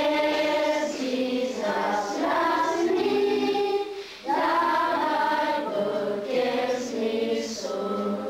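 A choir singing in held, sustained notes, with a short break about four seconds in.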